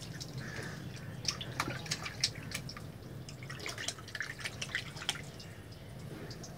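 Light splashing and dripping as a baby paddles its hands in water in a plastic tub: many small, irregular splashes that thin out near the end, over a low steady hum.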